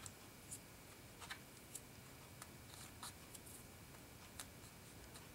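Faint crinkles and small clicks of a folded foil strip and card tag being pinched and pressed between fingers, a handful of light ticks scattered through an otherwise near-silent stretch.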